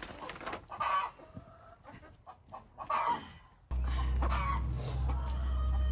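Domestic hen squawking and clucking in short loud calls, twice, the protest of a chicken being handled. In the last two seconds a loud low rumble sets in and stops abruptly.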